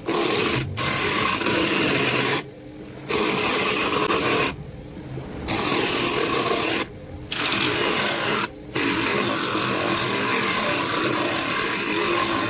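Homemade disc sander, driven by a treadmill massager's motor, running with a rough sanding hiss. It comes in several stretches broken by short, sudden stops.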